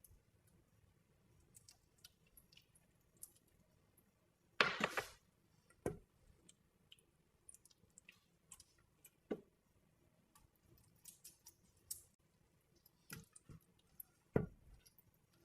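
Scattered light clicks and knocks of kitchen handling, with one louder rustling scrape about five seconds in and a few sharper knocks after it.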